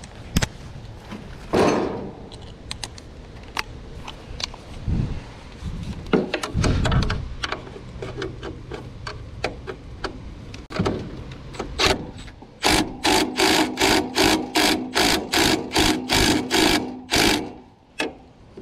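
Cordless driver run in a quick series of short trigger bursts, about three a second for several seconds in the second half, driving the mounting fasteners of a new condenser fan motor. Before that come scattered clicks and knocks of tools and parts being handled.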